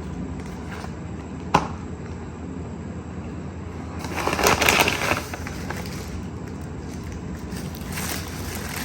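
Fast-food paper packaging being handled: a sharp click about one and a half seconds in, then a rustle of paper around four to five seconds in and again briefly near the end, over a steady low hum.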